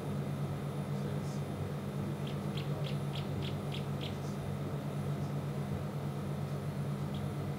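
A steady low hum, with a quick run of about seven short, high chirps, about three a second, in the middle.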